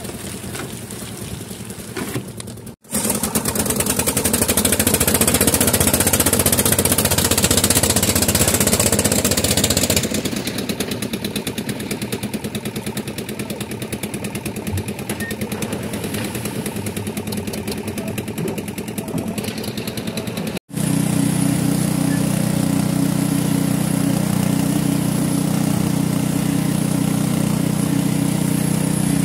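Concrete machinery running, in three cuts that break off suddenly about 3 s in and about two-thirds through. First a concrete mixer runs as wet concrete tumbles from its drum into a wheelbarrow, then the mixer keeps running loudly while its hopper is worked. Near the end a concrete poker vibrator's engine runs steadily as its poker works in the wet slab.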